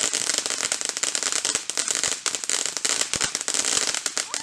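Ground fireworks crackling, a dense, rapid stream of small pops and sizzle with a few louder pops among them.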